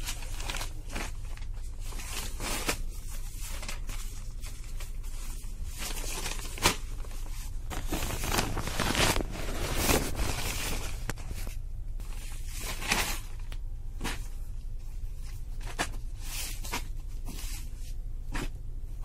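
Brown paper wrapping of a railway bedding packet being crinkled and torn open by hand: a run of irregular rustles and rips, busiest in the middle.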